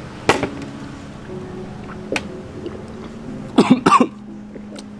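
A man coughing and clearing his throat while struggling to swallow a whole baby rat: a short cough just after the start, then two loud coughs close together just before four seconds in.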